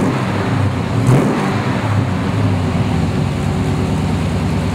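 Exhaust of a 1957 Chevrolet Bel Air pro-touring build running, with a short rev about a second in, then settling to a steady idle.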